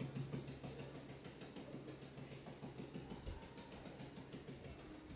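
Paintbrush dabbed repeatedly against wet paint on a spackled wall patch: a quick run of soft taps, over a low steady hum.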